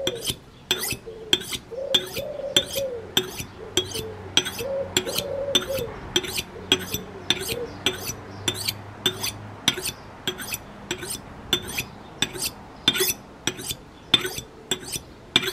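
Steel kitchen knife blade stroked across the unglazed bottom rim of an upturned ceramic mug, sharpening the edge: short, even scraping strokes about two a second.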